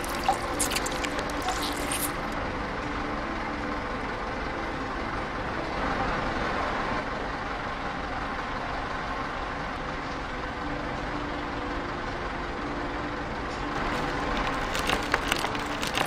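Steady industrial machinery noise: a continuous mechanical hum and hiss with faint steady tones. Crackling sounds come in during the first two seconds and again near the end.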